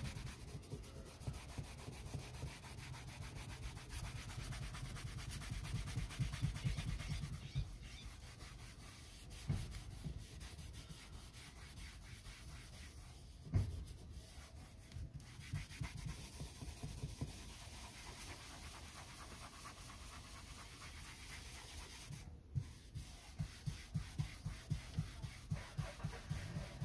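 Handheld vinyl-and-leather cleaning brush scrubbing back and forth on vinyl seat upholstery, faint, settling into about three strokes a second near the end. A brief knock about halfway through.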